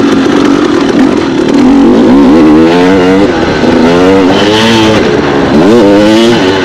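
A 2016 KTM 250 XC's two-stroke engine, heard from on the bike while riding: a steady note at first, then from about two seconds in a run of rising and falling revs as the throttle is opened and closed.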